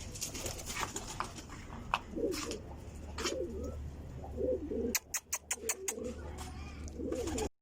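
Domestic pigeons cooing, several low warbling coos one after another. A quick run of sharp clicks comes about five seconds in.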